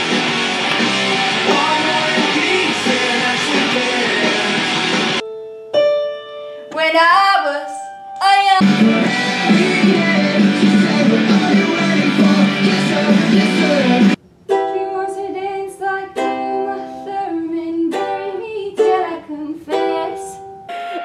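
Music edited in abrupt cuts: a dense full-band track, then sparse passages of plucked strings with singing. There is a hard break about five seconds in and a brief drop-out around fourteen seconds.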